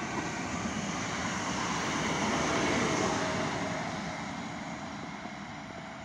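ED78 electric multiple unit passing: a steady rushing of wheels on rails that swells to its loudest two to three seconds in, then slowly fades as the train moves away, with a faint steady whine in the second half.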